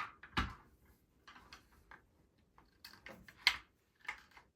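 A few short, irregular clicks and light knocks, the loudest right at the start and about three and a half seconds in.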